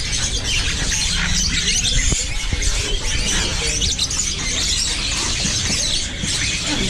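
Many caged birds chirping and squawking at once in a dense, overlapping chatter, over a steady low rumble.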